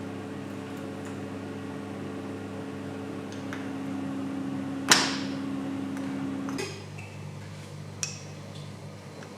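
A steady electric machine hum that changes abruptly about two-thirds of the way through, with one loud sharp metallic clink near the middle and a few light clicks near the end.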